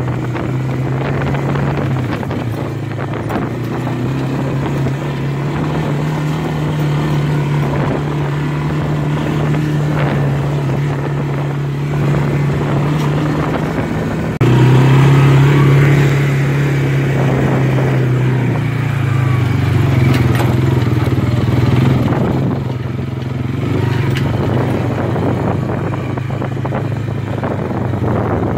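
Honda FourTrax 300 ATV's single-cylinder four-stroke engine running as it rides, a steady engine note that steps up louder about halfway through and then eases back.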